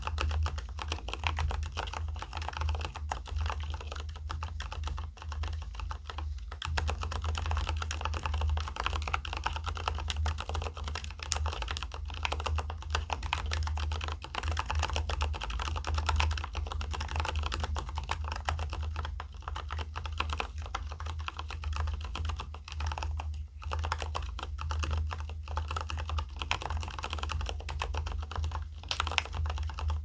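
Continuous fast typing on a Keychron K4 Pro mechanical keyboard: a dense stream of key clacks, with a couple of brief pauses.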